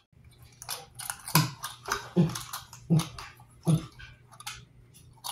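A string of short, animal-like vocal noises. The four loudest come evenly, about three quarters of a second apart, over a low steady hum.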